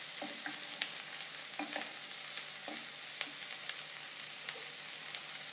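Onions, tomatoes and green chillies sizzling steadily as they fry in ghee in a kadai, with a few light knocks of a wooden spatula against the pan as they are stirred.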